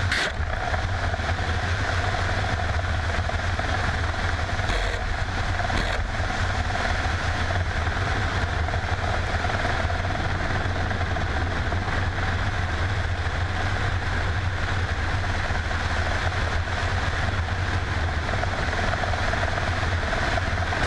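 Mil Mi-24 attack helicopter in low-level flight, heard from a camera mounted on its airframe: a steady, unbroken drone of its twin turboshaft engines and main rotor.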